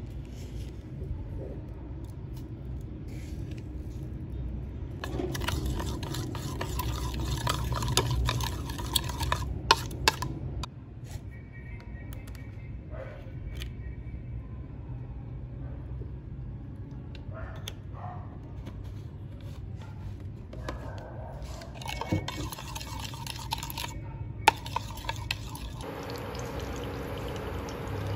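A metal spoon stirring a thick dark sauce in a ceramic bowl, scraping and now and then clinking sharply against the bowl. Near the end comes a steadier, humming sound as a pan of oil heats on an induction cooktop.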